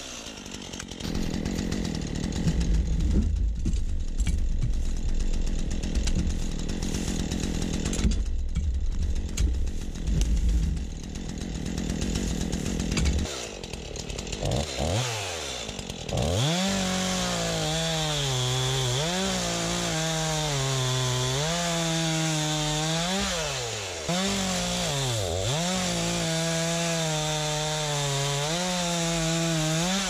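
Stihl two-stroke chainsaw cutting rounds from a felled maple log. For about the first thirteen seconds it gives a rough, low-heavy cutting sound. It then drops away and revs back up, and runs at a high whine whose pitch sags and recovers several times as the chain loads in the wood.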